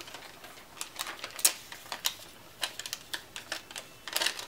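Paper backing strip of a roll of adhesive dots being handled and pulled, giving irregular small clicks and crinkles, louder about a second and a half in and again near the end.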